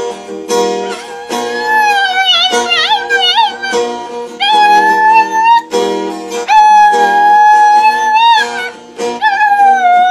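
A dog howling along to a strummed acoustic guitar: several high howls over the steady strumming, some wavering up and down and two held as long steady notes in the middle.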